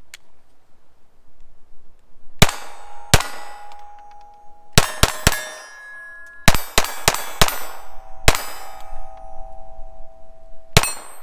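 Taurus TX22 .22 LR pistol firing about a dozen shots at an uneven pace, several in quick strings, with steel targets ringing with a clear, held tone after the hits.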